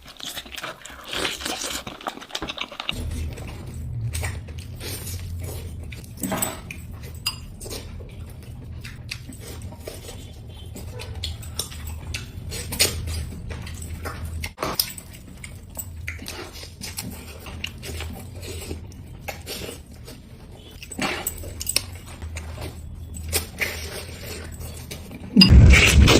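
A person eating: chewing and biting with scattered clicks of cutlery and dishes, over a steady low hum that comes in about three seconds in. A much louder noise starts suddenly near the end.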